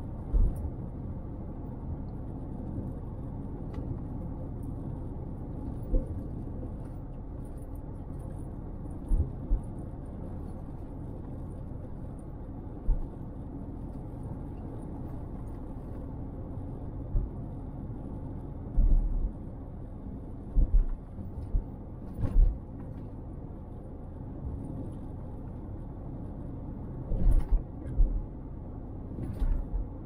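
Car driving along the road, heard from inside the cabin: a steady low rumble of engine and tyres, broken by brief low thumps now and then, most of them in the second half.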